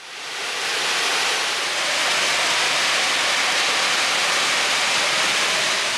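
Iron ore pellets pouring down an ore dock chute into a lake freighter's cargo hold: a steady rushing hiss that fades in over the first second and begins to fade near the end.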